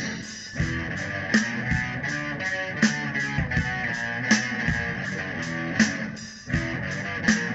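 Instrumental passage of a rock song: strummed electric guitar over bass and drums, with a sharp drum hit about every second and a half and a brief drop in level about six seconds in.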